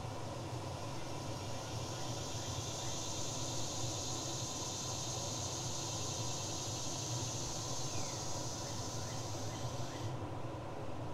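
Outdoor ambience: a high, even insect buzz over a steady low hum. The buzz stops abruptly near the end, and a few faint short chirps come just before it stops.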